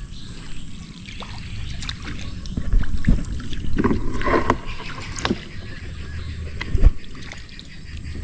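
Scattered knocks and clatter of handling over a steady low rumble, with a few louder knocks about three and seven seconds in.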